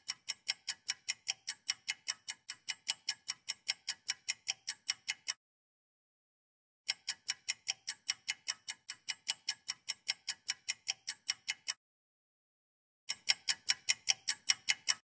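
Clock-ticking sound effect: an even tick a little over four times a second, in three runs with dead silence between them, the last run short and stopping about a second before the end.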